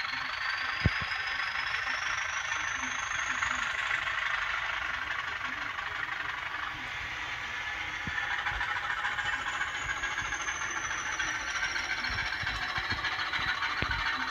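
Sound-decoder recording of an English Electric class 20 diesel engine, played through the small speaker of an N gauge Graham Farish class 20 model as it runs. A high whistling tone climbs in pitch over the first few seconds and falls away again near the end, with one sharp click about a second in.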